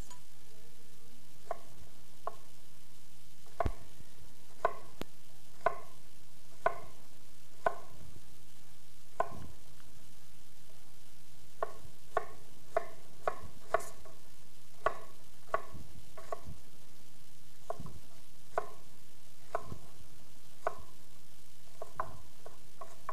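Chef's knives chopping onion and portobello mushrooms on wooden cutting boards: sharp knocks of the blades on the boards, about one a second, coming closer together, about two a second, around the middle. A steady low hum runs underneath.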